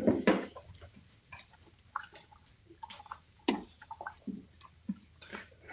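Dogs moving about in straw bedding in a whelping pen, heard through a security camera's microphone: scattered rustles and clicks with a few short squeaks, the loudest bunch right at the start and another sharp one about three and a half seconds in.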